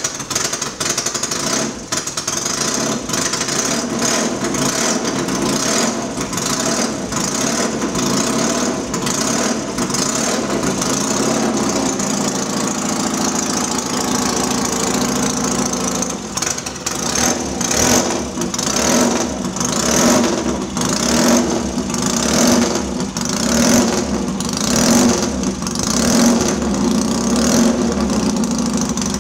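BSA A10 650 cc parallel-twin scrambler engine with a Spitfire cam and straight-through pipes, firing up at the start and running loud and steady. From about halfway the throttle is blipped in short revs about once a second.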